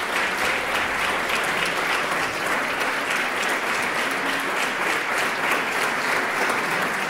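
Audience applauding: dense, even clapping from many hands at a steady level.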